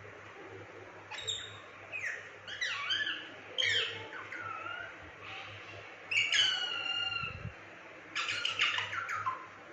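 Indian ringneck parakeet giving a series of short calls, sliding up and down in pitch, in about six bouts.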